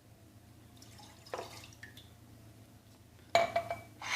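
Milk poured into a saucepan: after a faint knock, a clink near the end as the pour starts, then a steady splashing pour.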